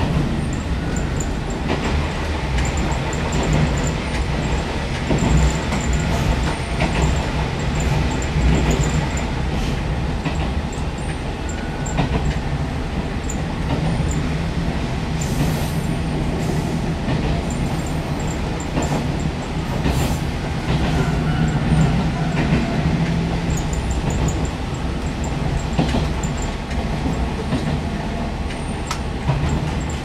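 Diesel railcar running steadily along single track, heard from the cab: a continuous low engine and running rumble with occasional clicks of the wheels over rail joints.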